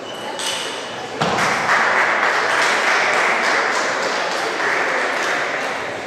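A few sharp table tennis ball strikes in the first second, then spectators applauding, starting suddenly about a second in and easing off near the end.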